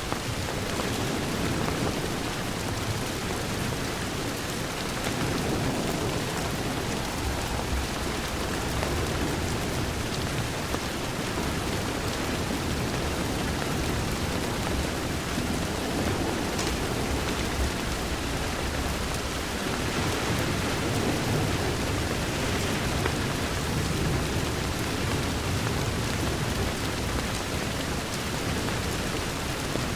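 Steady heavy rain falling against a window, with a low rolling rumble that swells and fades underneath.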